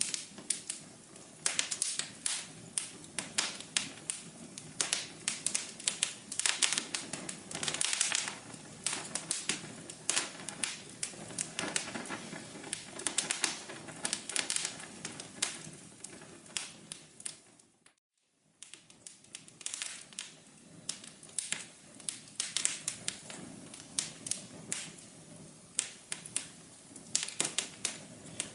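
Fire crackling: a dense, irregular run of sharp pops and snaps over a faint hiss, fading briefly to near silence about two-thirds of the way through before the crackling resumes.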